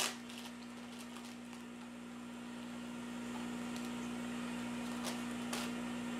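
Steady low electrical hum under faint crinkling of a plastic zip-top bag being handled, with a short sharper crinkle right at the start and two more about five seconds in.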